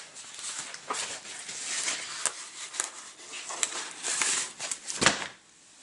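Cardboard packaging being pulled out of a manila envelope and handled: rustling and scraping of paper and cardboard with small crackles, and a single knock about five seconds in.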